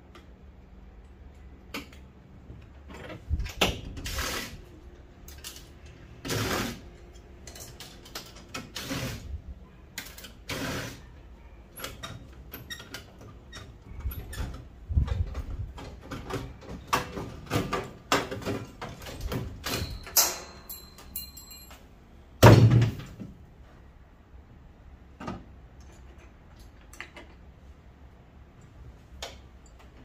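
Sheet-metal furnace cabinets being shifted about in a pickup truck bed: irregular knocks, thuds and clanks, with one loud bang about two-thirds of the way in.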